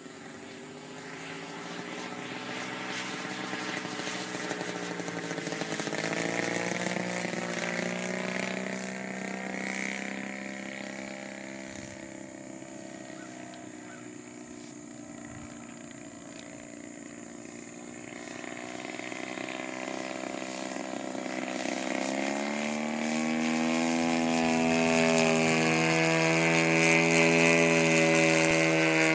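Radio-controlled model airplane's engine and propeller droning in flight, its pitch wavering up and down as it manoeuvres. It fades somewhat in the middle and grows louder over the last several seconds as the plane comes closer.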